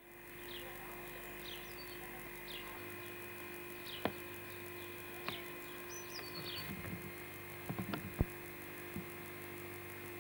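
Garden birds chirping, short falling calls about once a second, over a steady electrical hum on an old Betamax camcorder recording. A couple of sharp clicks come through, about four and eight seconds in.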